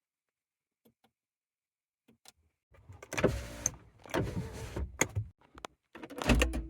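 Mechanical fittings of a Renault Twingo being worked: a few faint ticks, then from about three seconds in a dense run of clicks, knocks and short rattles, with a brief steady tone near the end.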